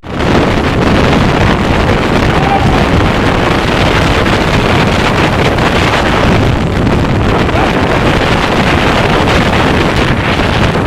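Strong storm wind blasting over a phone microphone: a loud, steady rush of noise, from the gusts of a supposed tornado.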